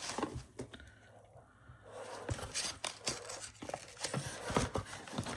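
Small polish bottles being pulled out of styrofoam packing: rustling and scraping of the foam, with a few sharp clicks of glass bottles knocking together.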